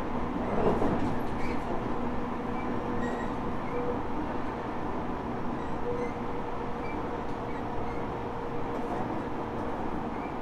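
Running noise inside a Tobu 10030 series motor car converted to VVVF control, travelling at speed: wheels rumbling on the rails under a steady hum from the traction motors. A brief louder rush comes about a second in.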